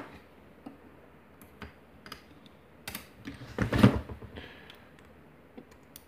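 Scattered light clicks and taps of metal tweezers and small lock pins against a disassembled lock cylinder and pin tray, with a louder knocking cluster about four seconds in.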